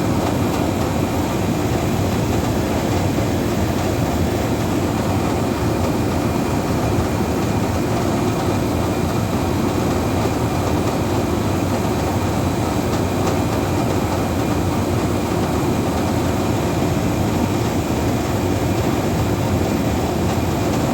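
Steady, loud rumbling noise that does not change, with no distinct events.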